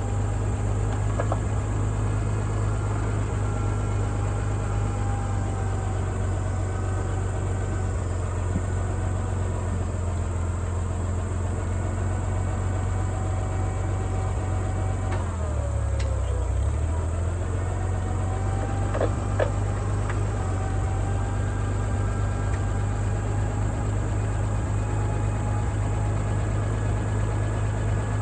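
International 460 Utility tractor engine running steadily, its pitch dropping briefly and coming back up about halfway through.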